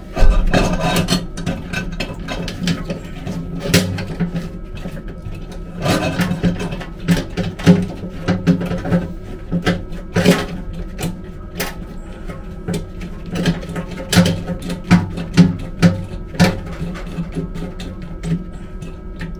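Hand tools clinking and knocking on the metal fittings of a railway passenger car's vacuum toilet as its parts are taken apart to change the diaphragm: irregular sharp metallic clicks, several a second at times, over a steady low hum.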